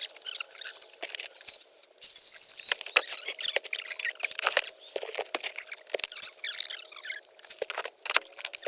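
Chicken feed being scooped and poured into buckets, the grain rattling in quick irregular clicks, with high squeaky chirps throughout.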